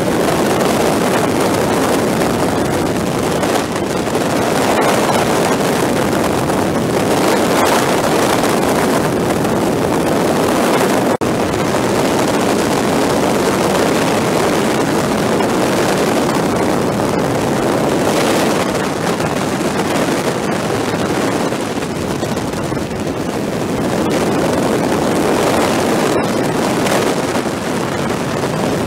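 Steady rush of wind on the microphone mixed with motorcycle engine and road noise while riding, with no distinct engine note, played back sped up four times.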